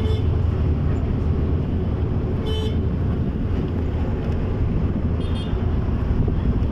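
Steady low rumble of a moving road vehicle's engine and road noise, heard from inside the vehicle, with three brief high horn toots from traffic, about two and a half seconds apart.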